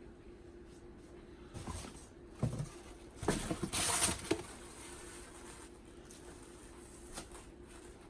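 Rummaging and handling noises: scattered knocks and rustles of objects and packaging being moved around, busiest in the middle, over a faint steady hum.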